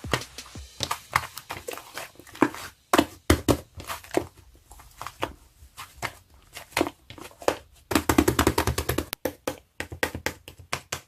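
An irregular series of sharp taps and clicks, thickest in a rapid cluster about eight seconds in.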